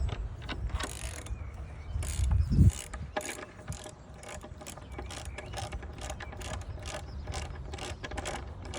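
Ratchet wrench clicking as it drives a lag bolt tight into the wooden structure, in a run of repeated clicks a few per second, with a brief low rumble about two seconds in as the loudest moment.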